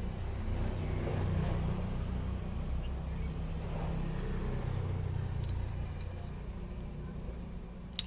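Scooter engine running steadily with a low hum that builds over the first second or two and fades toward the end, with a single sharp click near the end.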